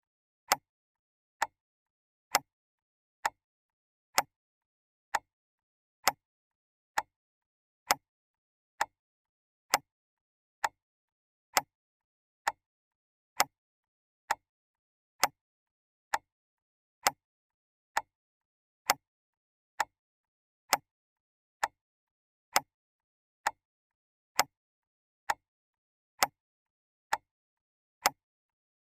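Clock ticking at a steady pace, a little faster than once a second, each tick a sharp click with nothing heard between ticks.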